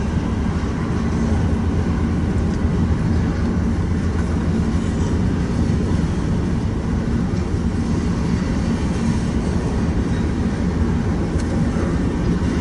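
Freight train cars rolling past a grade crossing: a steady rumble of wheels on rail, heard from inside a car.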